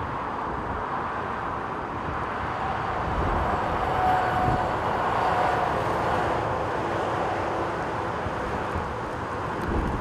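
Twin-engine jet airliner on final approach in a gale, its engine noise growing louder about three seconds in with a faint whine, while gusty wind buffets the microphone.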